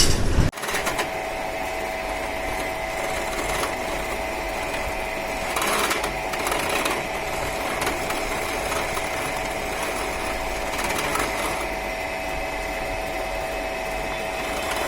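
An electric workshop machine's motor running steadily with an even whine and whirr, which starts suddenly about half a second in.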